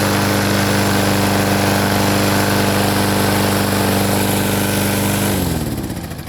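Briggs & Stratton single-cylinder lawnmower engine running at a steady speed, then shut off about five seconds in, its pitch dropping as it spins down.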